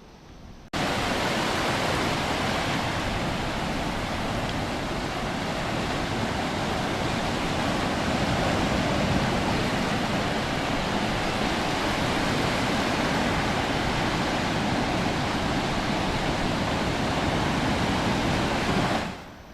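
Loud, steady rushing noise that starts abruptly about a second in and drops away sharply near the end, with no wave-by-wave rise and fall.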